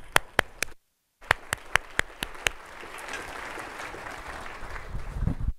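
Applause: a few loud, sharp claps from one person close to the microphone, joined by a spreading patter of audience clapping that cuts off suddenly at the end. The sound drops out completely for a moment about a second in.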